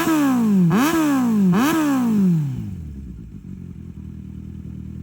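Kawasaki Z900 inline-four engine revved in quick blips, twice in the first two seconds, each snapping up and falling back. It then settles back to a steady idle.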